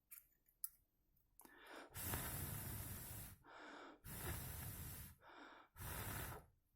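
A person breathing out hard three times, each a long rush of air of about one to one and a half seconds, with softer breaths in between; a couple of small clicks come before them.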